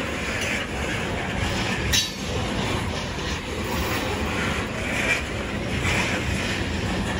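Freight train covered hopper cars rolling past at close range: a steady rumble of steel wheels on rail, with a sharp clank about two seconds in.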